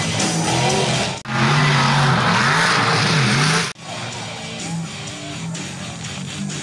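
Mega mud truck's engine revving hard, its pitch rising and falling, over a loud rush of tyres and flung dirt, broken by abrupt edit cuts. After about four seconds it drops to a lower level under rock music with guitar.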